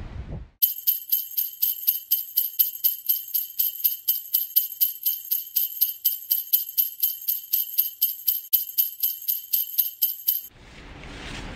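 Jingle bells shaken in a steady rhythm, about four shakes a second, starting about half a second in and stopping abruptly near the end.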